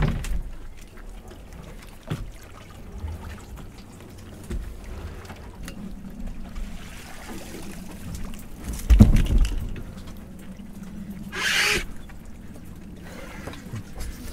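Seawater trickling and pouring off hand-hauled lobster pots. About nine seconds in, a heavy thud as a pot is set down on the stack, followed two seconds later by a short splashing rush.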